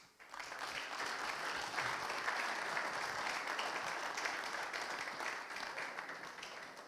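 Audience applauding, starting just after the start, holding steady and fading out near the end.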